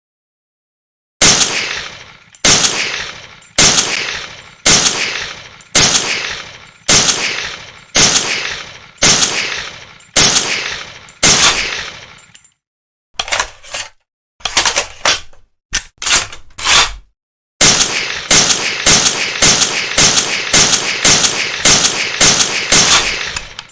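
Barrett M82 .50-calibre rifle firing: about ten heavy shots a little over a second apart, each echoing away, then a few short sharp reports, then a fast string of shots at about three a second.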